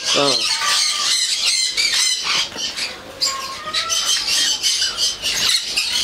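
Many caged small parrots, cockatiels and lovebirds among them, chattering and squawking together: a dense, continuous chorus of high calls.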